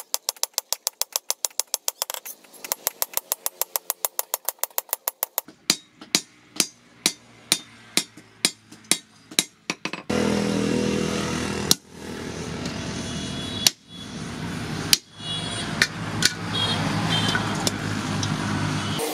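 Hand hammer striking a steel blade on a post anvil. The strikes come fast, about five a second, for the first five seconds or so, then slow to about two a second. About ten seconds in, a steady motor drone takes over, with a few clanks over it.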